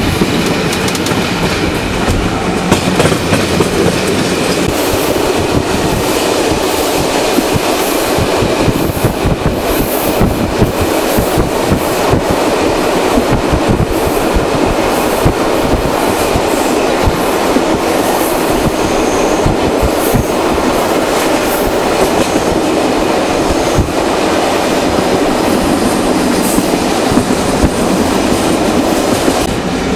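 Old locomotive-hauled passenger coach running at speed, heard from inside: a steady, loud rumble and rush of wheels on the rails, with many quick knocks and clicks over the track.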